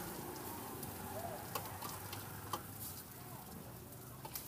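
Metal spatula and tongs clinking against a steel wok while fried noodles are served, with two sharp clinks about one and a half and two and a half seconds in and a few lighter taps, over a low sizzle from the hot pan.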